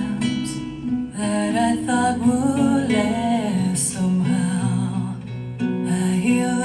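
A recorded pop song played through an Audio Phonic Hydra-1 bookshelf speaker with a 6.5-inch driver: a singing voice over guitar and other instruments.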